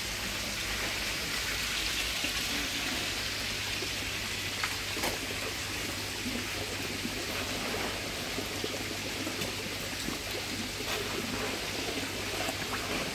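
Steady hiss of water splashing and trickling in a koi tank, over a steady low hum, with a few faint ticks.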